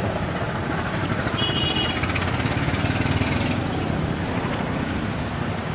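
Road traffic running steadily: engine and tyre noise of passing vehicles, with a brief high tone about one and a half seconds in.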